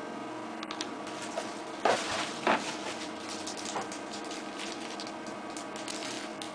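Packaging crinkling and rustling as a wrapped fingerboard deck is handled and unwrapped, with two louder rustles about two seconds in and small crackles after, over a steady background hum.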